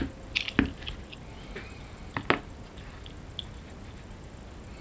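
Small clicks and taps of an airsoft rifle's trigger mechanism being handled during reassembly, parts knocking against the housing and the clamped locking pliers. A few sharp clicks come in the first second, two more about two seconds in, then only faint ticks.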